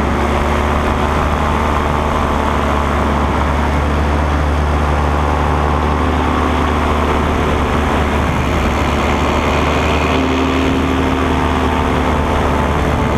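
Paramotor engine and propeller running steadily in flight, a continuous loud drone.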